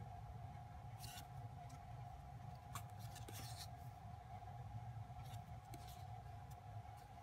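Stiff photocards being handled and slid over one another: a handful of short, papery rustles and slides, scattered a second or two apart, over a faint steady hum.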